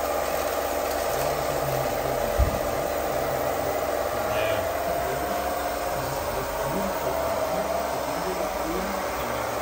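Steady whine of radio-controlled model machines' electric motors, wavering slightly in pitch over a background hiss. A single low thump about two and a half seconds in.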